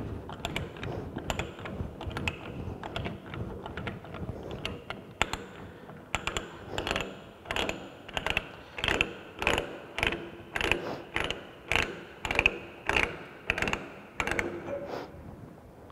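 Ratchet and pawl of a hand-operated ratchet pipe die stock clicking as the die head is worked back off a freshly threaded metal pipe. The clicks come quick and uneven at first, then settle into a steady rhythm of about two a second.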